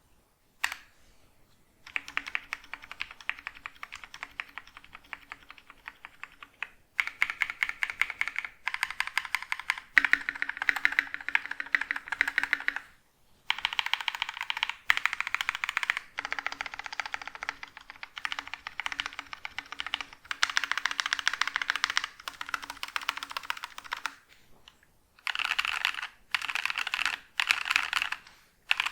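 Mechanical keyboard with Novelkeys Cream linear switches being typed on fast: long runs of rapid keystrokes broken by a few short pauses.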